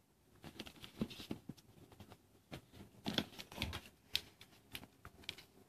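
Cellophane-wrapped cardboard product boxes being handled and moved: the plastic wrap crinkling and the boxes tapping, an irregular scatter of short clicks and crackles.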